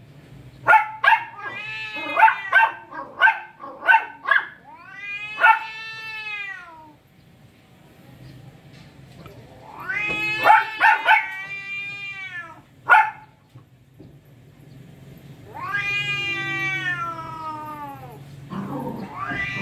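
Two cats caterwauling in a standoff: three long, drawn-out yowls that rise and fall in pitch, with runs of short, sharp cries in the first few seconds and again around 13 seconds in.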